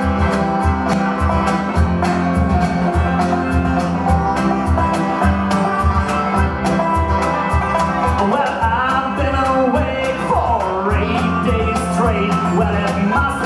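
Live country band with banjo, acoustic guitar and electric bass playing an up-tempo song over a steady beat. A sung vocal line comes in past the middle.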